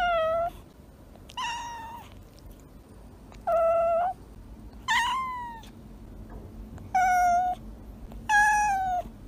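A cat meowing six times, each call short and pitched, about one every second and a half; the call near the middle slides down in pitch.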